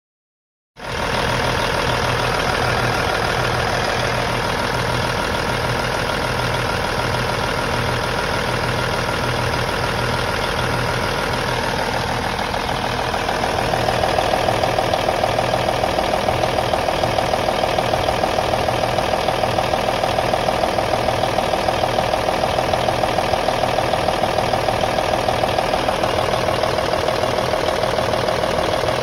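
Diesel engine of a 2000 Peterbilt 378 day-cab tractor idling steadily. About thirteen seconds in it grows slightly louder, with a stronger mid-pitched drone.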